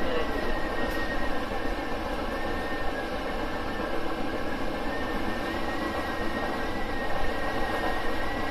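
Hankyu 5000 series electric train running at steady speed, heard from inside the driver's cab: a continuous rumble of wheels on rail with a faint high whine.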